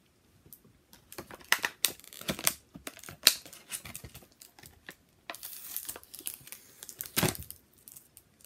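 Clear plastic toy packaging crinkling and crackling as it is handled, in irregular sharp crackles with a louder crackle near the end.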